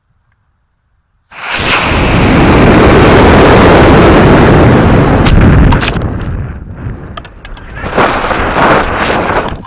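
Model rocket's D12 solid-fuel motor igniting with a sudden onset a little over a second in, then a loud rushing roar of thrust and air over the rocket-mounted camera as it climbs. The roar eases and fluctuates from about six seconds in, swelling again twice before dropping away.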